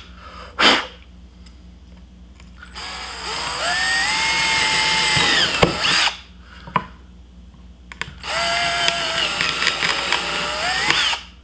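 Ryobi cordless drill boring pilot holes through a soft cedar board: a short blip of the motor about half a second in, then two runs of a few seconds each, the motor whine climbing in pitch as it spins up and stopping abruptly when the trigger is released.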